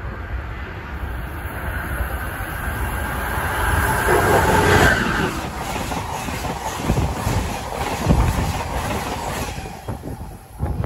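Amtrak passenger train of stainless-steel Amfleet coaches passing close by at speed. A rising rush as it approaches, loudest about four to five seconds in, then the wheels clatter over the rails as the cars go by, dying away near the end.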